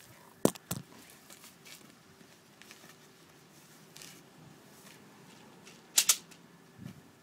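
SE wrist slingshot being shot with a BB: two sharp clicks about half a second in, then a louder double snap about six seconds in, with a few faint ticks in between.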